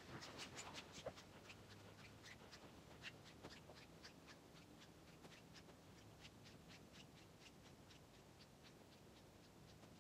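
Footsteps crunching in powder snow, a quick faint series of crunches that gets a little fainter as the walker moves away.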